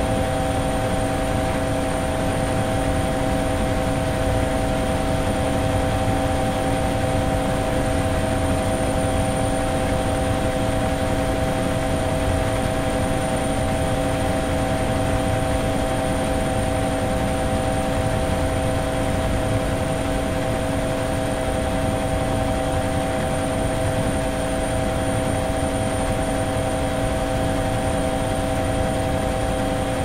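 Multirotor drone's electric motors and propellers whirring steadily, a constant whine of several fixed pitches over a rushing hiss.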